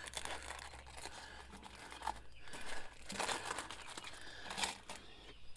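Intermittent rustling and crinkling from handling a replacement headlight assembly and its packaging, with a few short, louder scrapes.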